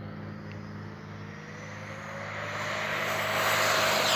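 Electric ducted fan of an E-flite F-16 70mm EDF RC jet spooling up as the throttle is opened. Its whine rises in pitch and grows steadily louder.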